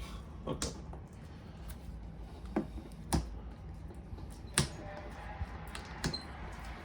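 Scattered sharp clicks and light knocks, about half a dozen, from a keyboard and its packaging being handled and unpacked.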